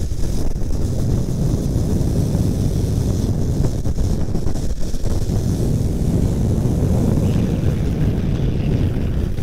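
Wind buffeting a microphone moving at speed down a wet road: a steady, loud low rumble with hiss over it.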